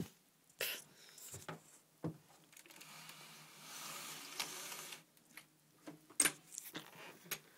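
Horizontal mini blinds being drawn up by their cord: the slats rattle and rustle as they stack for a couple of seconds around the middle, among several sharp clicks and knocks.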